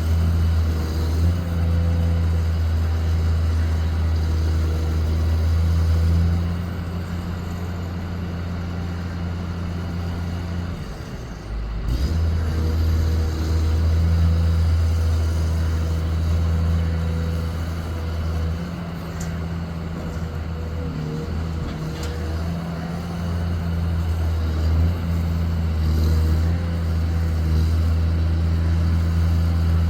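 Excavator's diesel engine running under load, its steady low note swelling and easing every few seconds. It drops away briefly about eleven seconds in, followed by a single knock.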